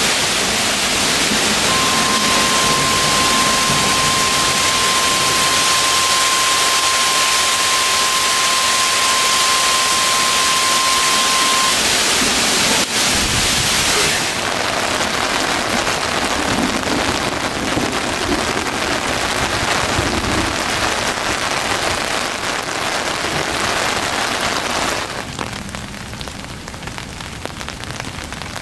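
Heavy rain pelting a creek's water surface: a dense, steady hiss. A steady high tone runs along with it for about ten seconds from about two seconds in; the rain eases somewhat about halfway through and drops to lighter rain a few seconds before the end.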